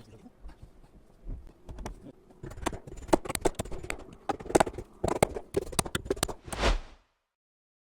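Irregular wooden knocks and taps, sparse at first and then coming thick and fast, ending in a heavier thud and cutting off suddenly about seven seconds in.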